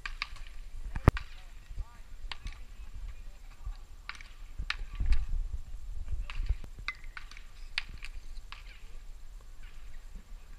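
Baseball batting practice: sharp cracks of bats hitting balls, a loud one about a second in and many fainter ones scattered after it, over a low rumble that swells about halfway through.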